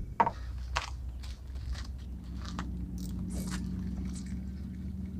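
Sharp clicks and scrapes of gear being handled close to the microphone, over a steady low drone with a hum that sets in about two seconds in.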